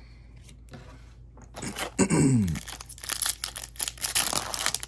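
Foil trading-card booster pack crinkling and tearing as it is ripped open by hand, a dense crackle from about two and a half seconds in. Just before it, about two seconds in, a short loud sound sliding down in pitch.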